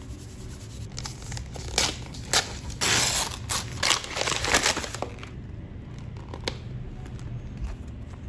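Snack packaging crinkling and rustling as it is handled, in irregular bursts with a longer rustle about three seconds in, then only faint handling noise after about five seconds.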